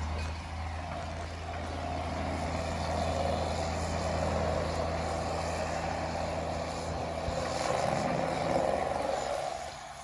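Heavy diesel farm machinery, an excavator and a tractor, running steadily at a manure lagoon being cleaned out. A louder rush swells from about two seconds in and drops away near the end.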